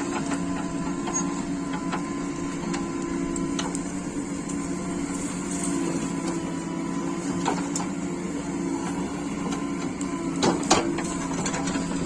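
Heavy diesel engine of earth-moving machinery running steadily, with scattered metallic clicks and clanks and a louder double clank about ten and a half seconds in, as a backhoe loader works soil.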